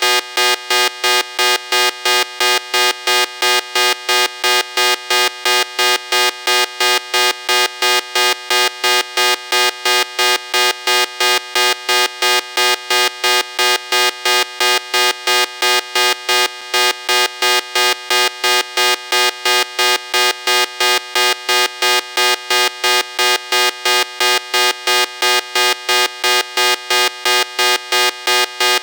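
Electronic earthquake warning alarm: a harsh, buzzy tone beeping on and off evenly, about two or three times a second.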